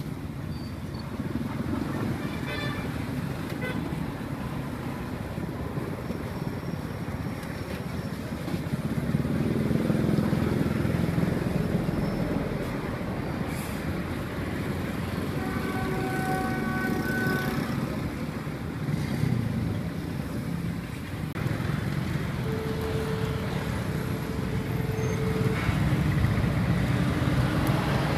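Street traffic running steadily past, with a vehicle horn sounding for about a second and a half just past the middle and a lower, longer steady tone a few seconds later.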